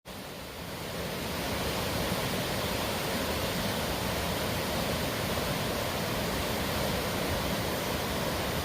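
A mountain river flowing strong, rushing steadily. It comes in just after a cut and then holds level.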